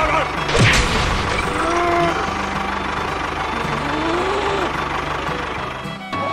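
Tractor engine running steadily with a low pulsing hum, with a cow mooing a couple of times over it and a sharp knock about half a second in.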